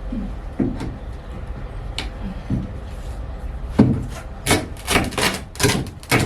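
Hammer knocking on wood: a few light taps, then a run of about seven sharp, irregular blows in the second half.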